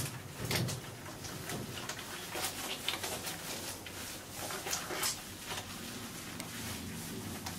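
Hands rubbing shampoo into a wet cat's coat: irregular short rubbing and rustling strokes.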